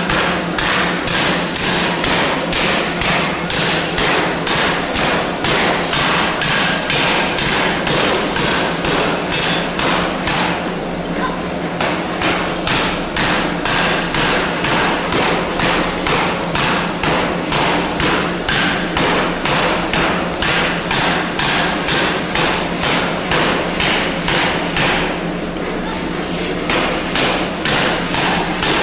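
Large C-frame open-die power forging hammer pounding a red-hot steel bar, its ram striking in a fast, steady series of heavy blows. The blows stop briefly twice and then start again, over a steady low hum.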